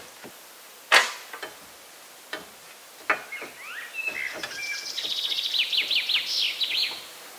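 A few sharp wooden knocks, the loudest about a second in, followed by a small songbird singing one phrase of whistled notes that speeds up into a rapid trill and stops just before the end.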